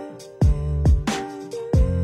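Background music with a steady beat: deep kick drums that drop in pitch, crisp snare and hi-hat hits, and held bass and melody notes.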